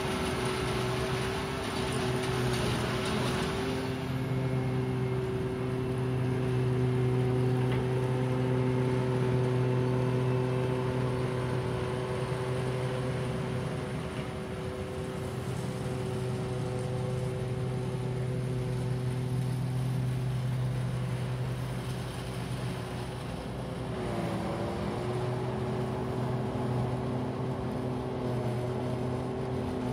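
Tractor and pull-type forage harvester running steadily while chopping standing corn into a forage wagon, a constant droning hum. About three quarters of the way through the pitch dips briefly and then comes back up.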